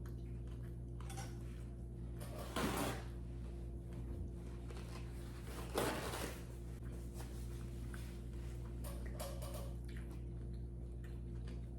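Steady low electrical hum in a small room, with two short noises of handling or eating about three seconds apart.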